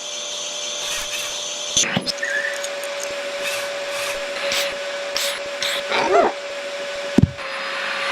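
Vacuum cleaner running with a steady motor hum, broken by a couple of sharp knocks. About six seconds in there is a brief whine that rises and falls.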